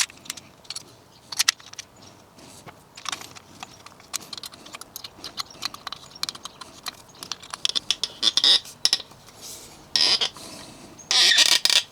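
Small metal camera-rig parts being handled: scattered light clicks and rattles, with a few louder brief rustling scrapes near the end.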